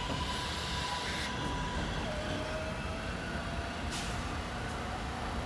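Kawasaki R188 subway train pulling away from the station, a steady rumble on the rails with a thin motor whine that rises slowly as it speeds up. A sharp click comes about four seconds in.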